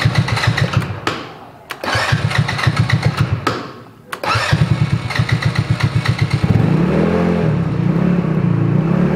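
Two-seat off-road go-kart's engine being cranked with its key starter: three spells of quick, even chugging with short pauses between, and on the third try, about six seconds in, it catches, revs up briefly and keeps running.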